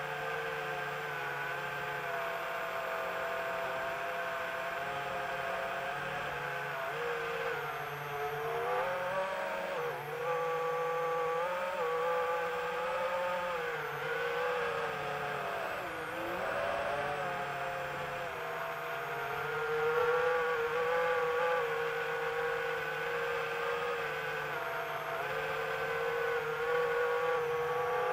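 Small multirotor drone's electric motors and propellers whining, the pitch rising and falling with changes of throttle, dipping sharply about halfway through.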